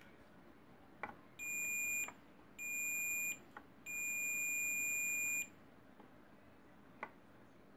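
Digital multimeter's continuity beeper sounding three steady high beeps, the last one about twice as long as the others, with light clicks of the probe tips on the board around them. The beep marks a low-resistance path across a VRM MOSFET, which the technician reads as a leaking or shorted MOSFET.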